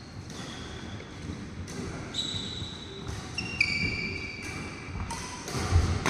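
Indoor badminton play: court shoes squeaking on the wooden floor in several drawn-out high squeals, with sharp racket strikes on the nylon shuttlecock, the loudest near the end.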